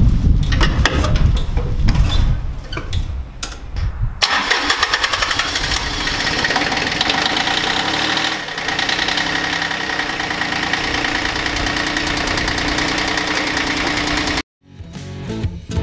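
Bolens G152 subcompact tractor's diesel engine running. About four seconds in, the low rumble gives way abruptly to a busier, higher steady running sound, which cuts off sharply near the end.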